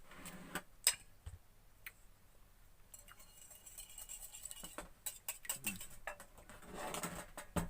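Kitchen handling sounds: scattered sharp clicks and clinks of dishes and utensils, with stretches of rustling noise.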